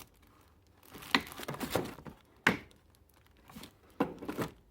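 Packaging being handled: paper and plastic crinkling and rustling, broken by several sharp clicks and knocks, the loudest a little after one second and again about halfway through.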